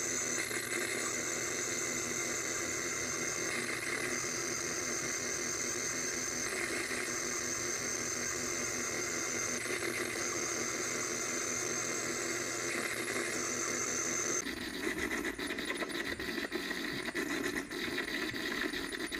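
Homemade analogue noise generator (four oscillators, four clocks, four filters) sounding through its speaker. It holds a steady noisy drone with a high steady tone that swells about every three seconds. About fourteen seconds in it switches suddenly to a harsher crackling, stuttering noise.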